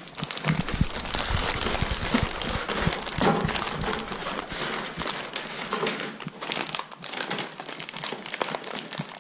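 Paper crinkling and rustling as a golden retriever noses into a cardboard box and tugs at the packing paper inside, with scattered soft thumps.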